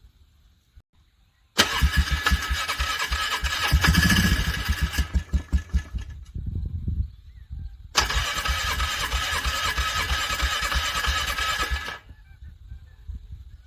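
ATV engine cranked on its electric starter in freezing cold, struggling to turn over: two cranking attempts of about three and four seconds, the starter whining over the fast chug of the engine turning. A few low pulses trail off after the first attempt, and the engine does not catch.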